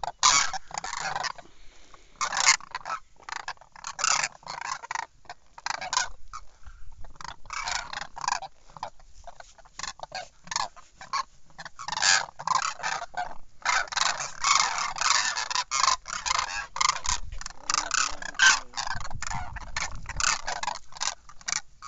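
A flock of demoiselle cranes calling: many short, overlapping, noisy calls that come in dense clusters, busiest in the middle of the stretch.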